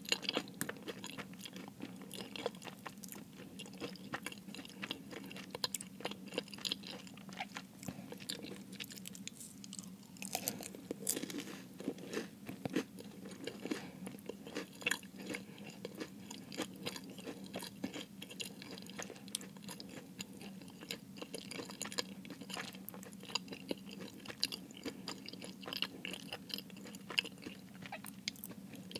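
Close-miked chewing and biting of a flaky-crusted Jamaican beef patty: a steady stream of small crisp crackles, with a denser patch of crunching about ten seconds in.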